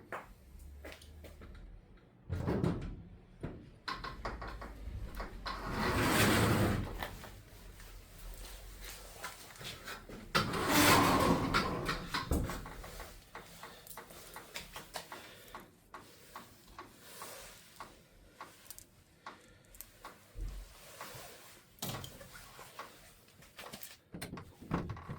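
Metal parts of a Garador garage door lock and handle being worked loose and swapped by hand: scattered clicks and knocks, with longer scraping sounds about two seconds, six seconds and eleven seconds in, the last the loudest.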